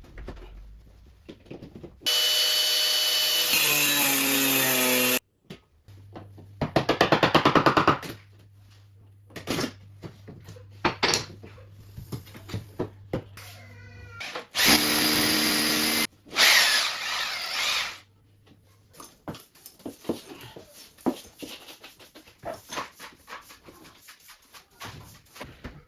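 Handheld power tool run in several bursts of a few seconds each while removing skirting board; the first burst winds down in pitch as the tool is let go. Knocks and clatter between the bursts.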